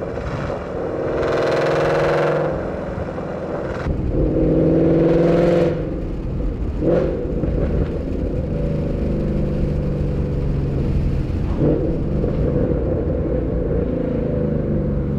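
2012 Mustang GT's 5.0 Coyote V8, breathing through long-tube headers, an X-pipe and a Borla ATAK axle-back with the resonator deleted, revving hard twice in the first six seconds. It then runs at steadier, lower revs.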